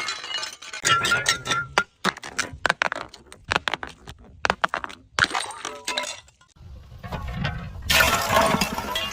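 Glass bottles breaking and shattering in a string of crashes, with shards clinking and tinkling between the impacts.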